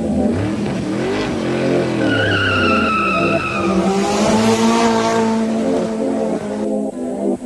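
A drift car's engine revs up and down repeatedly as the car slides. About two seconds in the tyres give a high squeal, and around the middle there is a loud rushing hiss of tyres scrubbing sideways.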